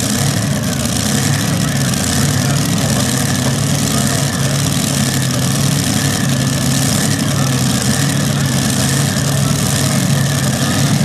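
Modified pulling tractor's engines idling steadily with a low, even rumble, held at the starting line.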